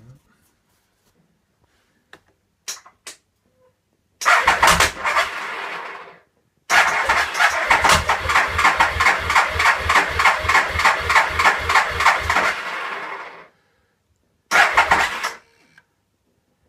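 Electric starter of a Triumph Speed Triple 1050's three-cylinder engine cranking in three attempts: a short one, a long one of about seven seconds with an even pulsing of compression strokes, and a brief last one. Each stops abruptly without the engine catching. The crank turns because the freshly repaired sprag (starter) clutch is engaging. A few faint clicks come before the first attempt.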